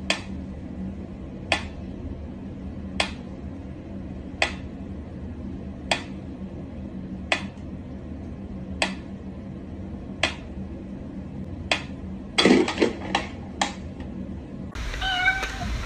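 Mechanical pyramid metronome ticking slowly, one sharp tick about every second and a half. About twelve seconds in, a quick run of louder knocks breaks the pattern, and the ticking stops.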